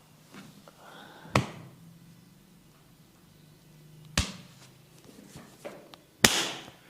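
Three sharp hand smacks in a barber's massage, spaced about three seconds apart, the last one the loudest.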